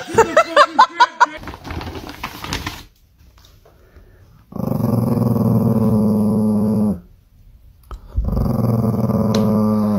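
Small Chihuahua-type dog growling twice at a lime held up to its face: one long, low, steady growl of about two and a half seconds, then after a short pause another of about two seconds.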